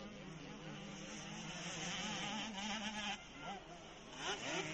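Motocross bike engines buzzing and revving as the bikes race along the track, their pitch rising and falling.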